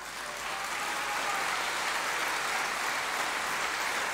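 A large audience applauding, the clapping swelling over the first second and then holding steady.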